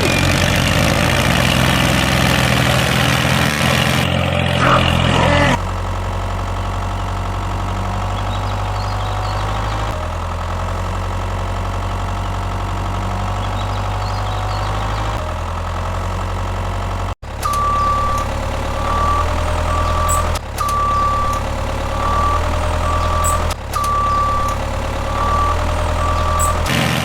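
Heavy construction-machine engine idling steadily, the sound changing abruptly at several cuts. In the second half a reversing alarm beeps about once a second over the engine.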